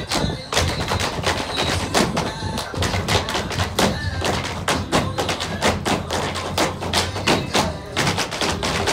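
Several dancers' tap shoes striking a stage floor in quick, rhythmic footwork, over a backing music track with a steady bass line.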